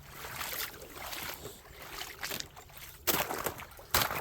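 Footsteps through a shallow creek bed: irregular steps splashing water and crunching stones, about five in all, the two loudest near the end.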